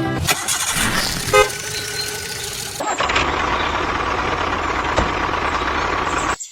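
A machine running with a steady mechanical noise, with a short string of beeps about a second and a half in. The sound changes near the middle, a steady whine comes in, and it cuts off suddenly near the end.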